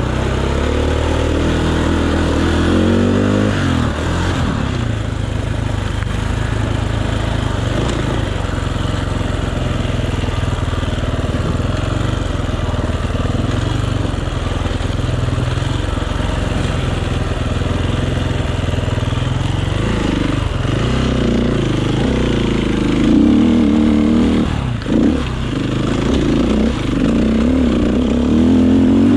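Enduro motorcycle engine running under way, its revs rising and falling through the first few seconds and again through the last several seconds, steadier in between.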